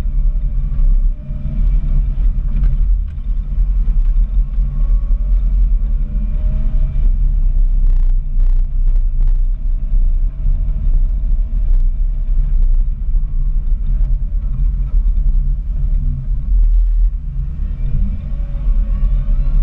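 Komatsu WA270 wheel loader's diesel engine running under load with a steady low rumble, and a faint whine that rises and falls as the machine drives and pushes snow. A few short clicks come about eight seconds in.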